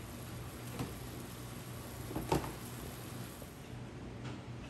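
A thin sauce simmering quietly in a stainless-steel wok over a gas burner, over a low steady hum and faint hiss. Two light knocks of kitchen utensils come through, a small one about a second in and a louder one a little after two seconds.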